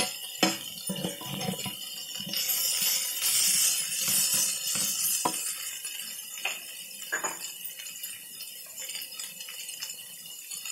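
Steel ladle stirring boiled potatoes and onion in a kadai, its metal clinking and scraping against the pan in quick knocks at first. From about two seconds in the potatoes fry with a hiss for a few seconds, followed by a few scattered clinks.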